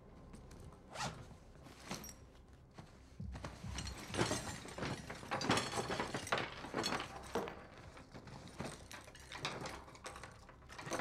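A fabric tool bag being unzipped and searched: rustling cloth and a scatter of clicks and clinks as tools are handled and set on a wooden table, busiest in the middle.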